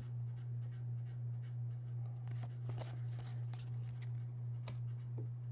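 A steady low hum, with faint papery flicks and rustles of trading cards being handled and flipped through by hand, clustered in the middle of the stretch.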